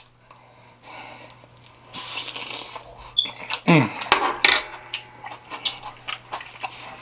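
A person eating: soft chewing noises and many small mouth and utensil clicks, with a short falling hum-like vocal sound about four seconds in.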